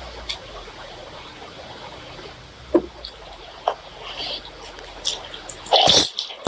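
Close-miked wet eating sounds from spicy pork curry and rice: scattered sharp clicks and mouth noises over a low hum, with a louder wet smack about six seconds in.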